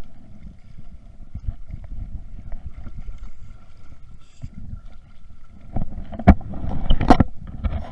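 Wind rumbling on the microphone over choppy river water, with two sharp knocks about six and seven seconds in.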